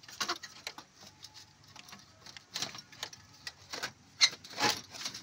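Ratchet wrench clicking and metal clinking as the bolts of a car radiator's fan shroud are loosened, with a sharper knock about four seconds in.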